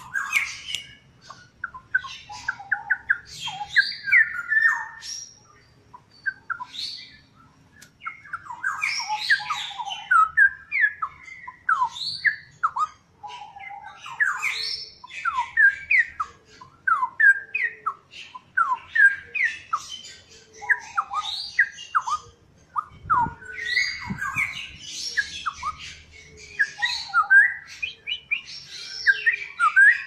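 Straw-headed bulbul (cucak rowo) singing: a long run of rich, liquid whistled phrases, quick notes gliding up and down, in bursts broken by brief pauses.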